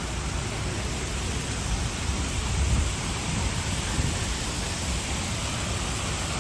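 Wind buffeting the microphone: a steady rushing noise with low rumbling gusts, strongest about two and a half and four seconds in.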